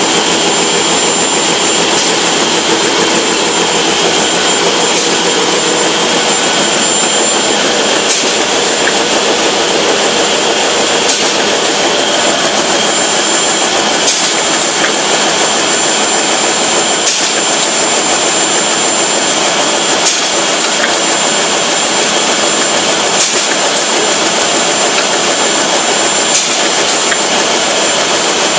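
Fameccanica FNL sanitary napkin production line running steadily: a loud, even machine din with a thin high whine throughout and occasional faint ticks.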